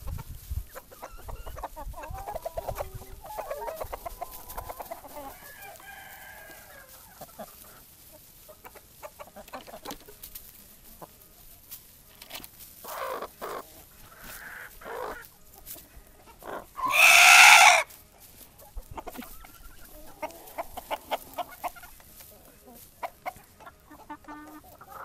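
A flock of chickens clucking close by, with scattered short clicks and calls. About two-thirds of the way through comes one loud call lasting about a second.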